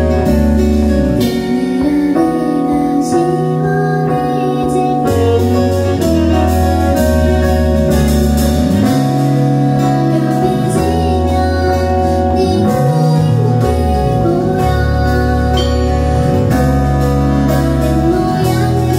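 A woman sings a slow song live into a microphone while accompanying herself on a stage keyboard, over held low notes that change every second or two.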